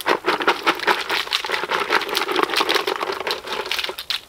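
Kitchen scraps, walnut shells among them, tipped and shaken out of a plastic compost caddy onto a compost heap: a dense crackling rattle that stops about four seconds in.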